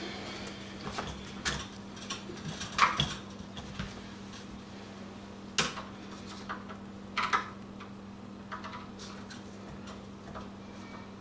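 Metal lock parts of an old deadbolt and latch clinking and clicking as they are unscrewed and handled with a Phillips screwdriver: a handful of sharp knocks spread out, with smaller ticks between, over a steady low hum.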